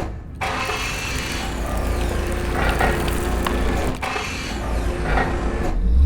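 Sound-effects bed for a crumbling countdown timer: a deep, continuous rumble under a grinding, crumbling debris noise. The sound drops out briefly at the start and again just before the end, where a deep boom sets in.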